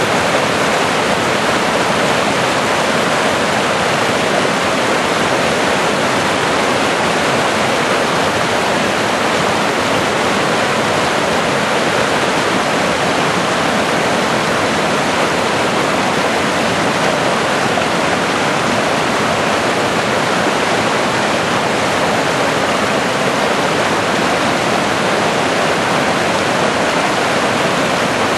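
Swift-flowing stream after rain, rushing over and between granite boulders in small whitewater cascades: a steady, unbroken rush of water.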